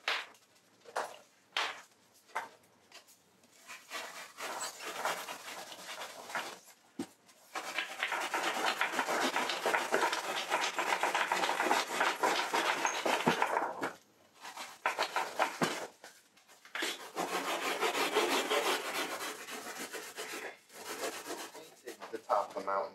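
Hand tool carving and scraping along the top edge of a model railroad mountain backdrop, cutting in the contour and relief of the peaks. It goes in short separate strokes for the first several seconds, then in long runs of steady scraping, with a break about 14 seconds in.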